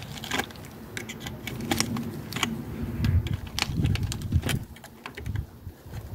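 Pliers twisting the tie-down wire that anchors a bonsai's root ball in its pot: a string of small, sharp metallic clicks and scrapes, with some low rubbing of handling around the middle.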